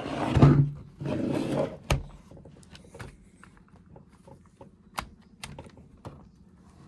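Hands handling a ThinkPad T61 laptop: two noisy rushes in the first two seconds, then a few sharp plastic clicks and taps spread through the rest.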